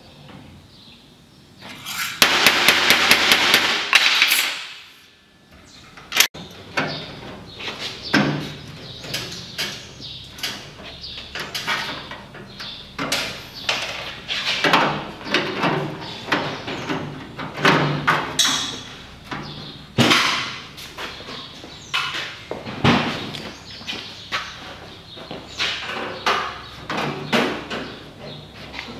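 Hammer blows on a sheet-steel strip being shaped over a steel bench edge: a fast run of strikes about two seconds in, then irregular, more spaced taps and knocks of metal.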